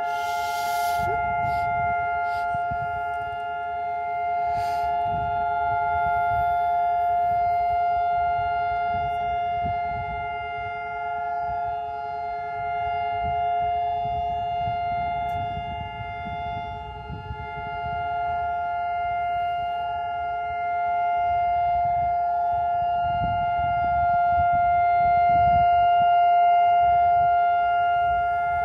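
Israeli civil-defence siren sounding the Memorial Day (Yom HaZikaron) siren, the signal for a standing silence in memory of fallen soldiers and victims of terror. It holds one long, steady tone of two close pitches that swells and eases slightly in loudness, over a low uneven rumble.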